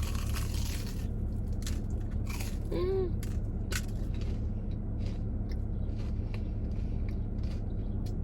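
Chewing a crunchy deep-fried Korean corn dog close to the microphone: scattered crisp crunches, with a brief vocal sound about three seconds in.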